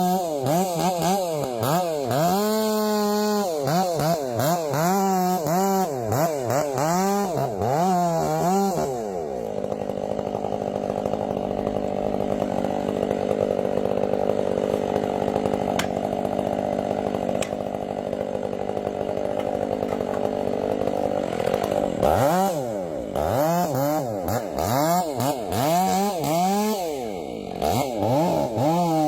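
Chainsaw engine revved up and down over and over, then held at high speed for about eleven seconds in the middle, then revved up and down again.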